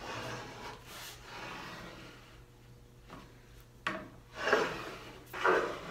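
Wood rubbing and scraping as a wide walnut board is handled and marked on a wooden workbench: a soft scraping at first, then two louder scrapes in the last two seconds.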